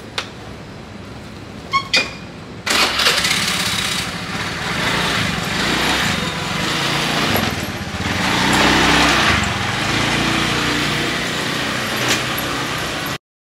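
Street traffic noise with engines running, starting abruptly about three seconds in and cutting off suddenly just before the end.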